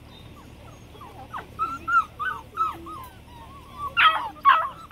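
Black and tan coonhound puppies whimpering and yipping in a run of short, high cries that start about a second in and grow louder near the end.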